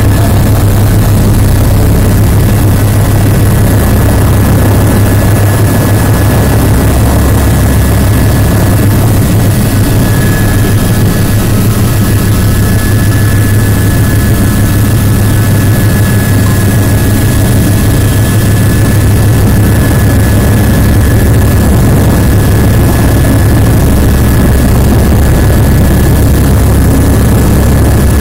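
Helicopter heard from inside the cabin, the rotor's low steady beat and a thin steady turbine whine running loud and unchanging as it comes in to land.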